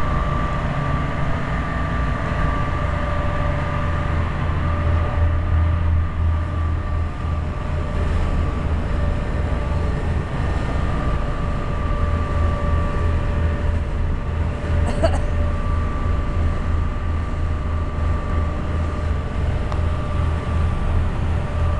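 Boat engine running steadily at cruising speed: a low drone with a steady whine over it. A single short tap about fifteen seconds in.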